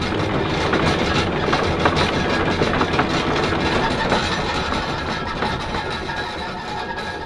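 Privilege 585 catamaran under engine power: a steady low engine rumble with a noisy rush over it.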